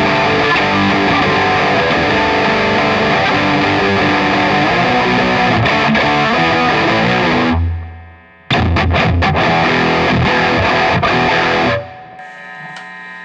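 Electric guitar played through a Digitech RP1000 multi-effects preset modelling a Plexi amp with an overdrive, giving heavily distorted playing. It stops briefly about seven and a half seconds in, starts again, and drops to a fading ring near the end.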